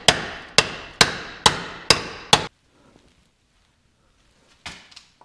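Hammer blows on a driver tool, seating a new bushing into a Turbo 350 transmission's front pump: six sharp strikes about two a second, each ringing briefly, then one more strike near the end.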